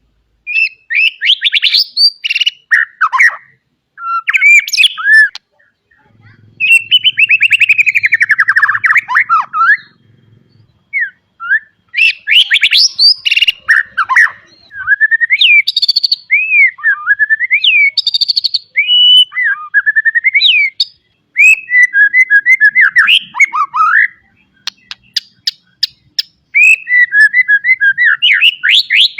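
White-rumped shama singing a long, varied song of clear whistles, sliding notes and fast trills, broken by short pauses, in the full 'isian' style packed with mixed phrases.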